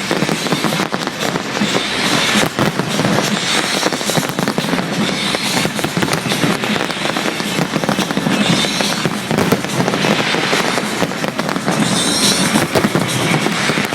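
Fireworks display: many bangs and crackles running together, with no break.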